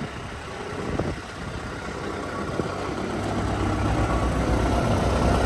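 Volvo EC160DL excavator's diesel engine idling steadily, a low hum that grows louder over the second half.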